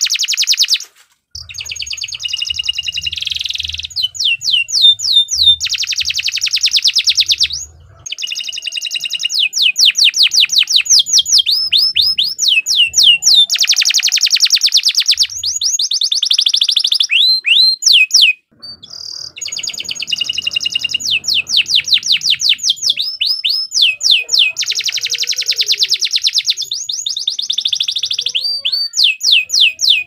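Green canary (kenari ijo botol) singing a long, loud song of rapid trills and quick falling whistles, breaking off briefly about a second in and again around eighteen seconds. The bird is in full song.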